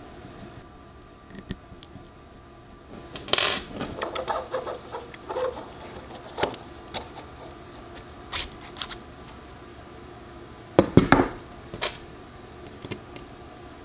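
Clicks, clinks and knocks of small hard parts being handled and set down. There is a run of rattling clicks about three to five seconds in and a short cluster of louder knocks about eleven seconds in.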